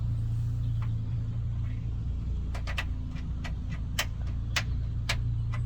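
A rubber grommet being pushed and pressed into a drilled hole in a car's body panel, giving a string of short, sharp clicks from about halfway through. A steady low hum runs underneath.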